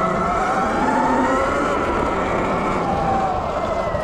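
Sur Ron Light Bee X electric dirt bike's motor whining as it rides, the pitch rising and falling with speed, over a low rumble.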